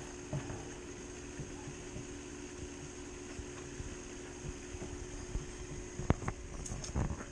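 A steady hum over a low rumble, with a few sharp knocks about six and seven seconds in as a garden hose is forced onto the metal fitting of an old radiator.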